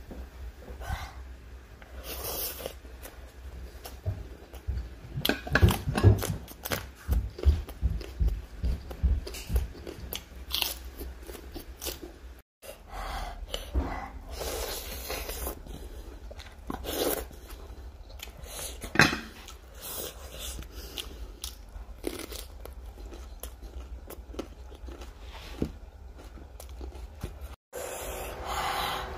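A person eating with their hands: irregular chewing, lip smacks and crunches, broken by two brief dropouts.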